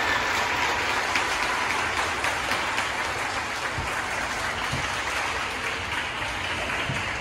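Audience applauding in a large, echoing school gymnasium, the clapping slowly dying down.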